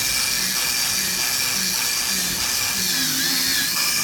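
CNC knife cutting machine running while cutting wool: a steady high-pitched whine and hiss, with faint tones that rise and fall every second or so.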